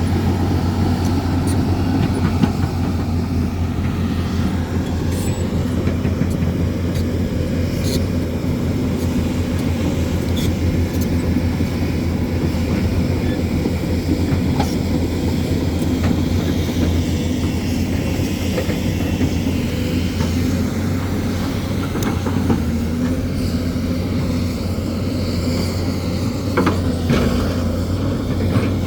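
Hyundai excavator's diesel engine running steadily under work, with a few sharp knocks scattered through.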